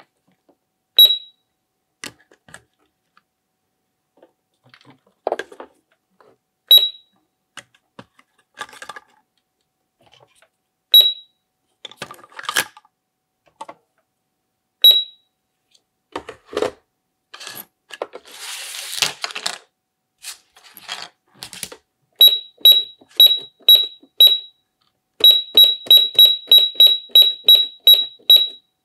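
Toy supermarket cash register beeping: single electronic beeps a few seconds apart as toy groceries are scanned with its handheld scanner, among plastic clicks and knocks of the toys being handled. About two-thirds of the way in there is a short scraping noise, then a quick run of beeps as number keys are pressed on the register's keypad.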